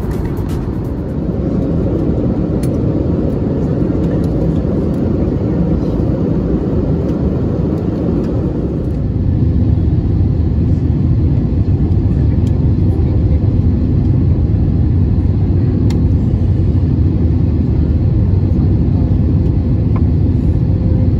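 Cabin noise of an Airbus A320neo landing: a steady low rumble of jet engines and airflow, heard from a window seat. It grows louder about nine seconds in as the airliner comes down onto the runway and rolls out.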